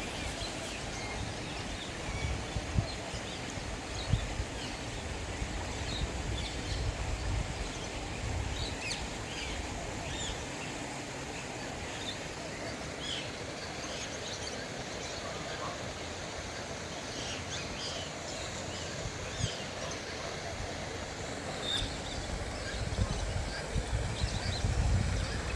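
Outdoor ambience of small birds chirping in short, scattered calls over a steady background hiss, with low rumbling in the first few seconds and again near the end.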